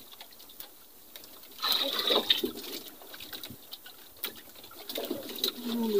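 Water lapping against the hull of an outrigger fishing boat, with small scattered knocks and clicks and a louder rush of water noise about two seconds in.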